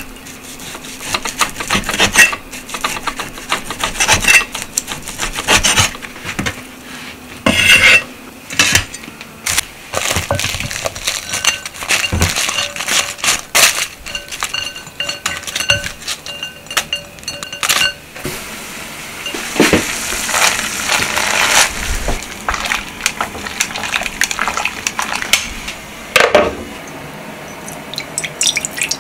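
Kitchen prep: bowls, a ladle and utensils clinking and knocking irregularly against glass and ceramic as cooked noodles are handled in a glass bowl and sauce is ladled into a ceramic ramen bowl. A few seconds of denser hiss-like noise come about two-thirds of the way through.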